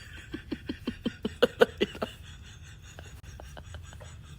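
A person laughing in a quick run of short 'ha' sounds, about five a second, trailing off into fainter, broken laughter after about two seconds.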